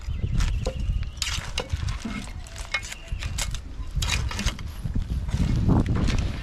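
A metal spoon clinking and scraping against a metal pot as cooked crabs are tossed and stirred, the shells clattering in irregular knocks. A steady low rumble runs underneath.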